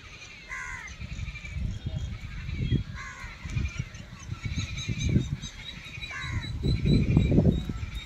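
Many waterbirds at a nesting colony calling at once, a busy chatter with a sharper falling call standing out three times. Under it runs an irregular low rumble that is louder in the second half.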